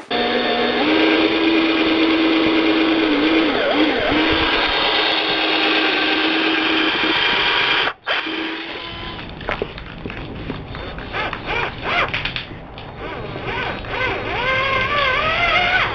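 Cordless drill drilling out the rivets of a helmet shell. For about eight seconds the motor runs steadily at speed, its whine dipping briefly in pitch under load. After a sudden break it comes back quieter and in shorter bursts, with the whine rising as it speeds up near the end.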